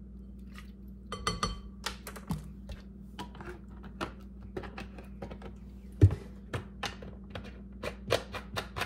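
Small clicks, taps and knocks of kitchen items being handled on a countertop, among them a plastic lemon juice bottle, with one sharper knock about six seconds in.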